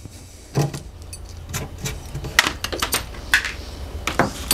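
Irregular small metallic clicks and clinks as a concealed cabinet hinge's mounting plate and its screws are pulled off and handled.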